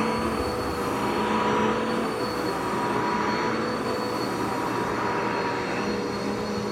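Vacuum cleaner running steadily, its motor whine holding several steady pitches over the rush of air.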